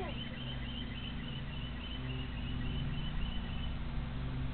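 A bird chirping over and over, about three short chirps a second, stopping a little before the end, over a steady low hum.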